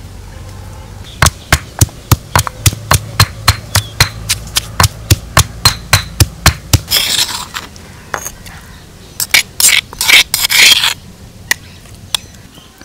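Sharp, evenly spaced knocks from food preparation, about three a second for some five seconds, followed by two stretches of scraping.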